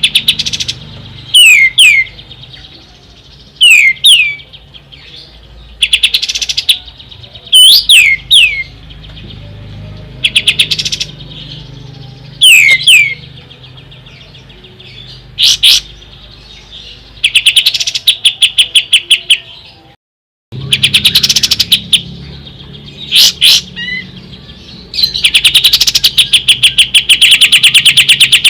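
Kapas tembak song: loud, sharp down-slurred whistle notes every second or two, alternating with fast rattling trills. A long trill comes near the end.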